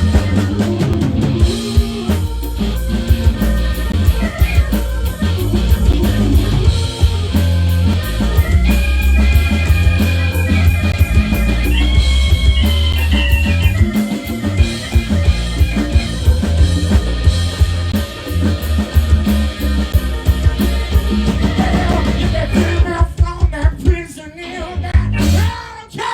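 Live band playing rock music with a drum kit, bass and guitar, possibly with some singing. The music thins and drops away near the end.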